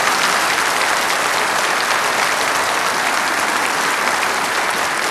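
Studio audience applauding steadily: many hands clapping in a dense, even patter.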